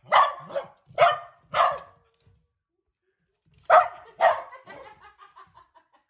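Dog barking while chasing a laser pointer dot: three barks about half a second apart, a pause, then two more about four seconds in that trail off into softer, quicker yips.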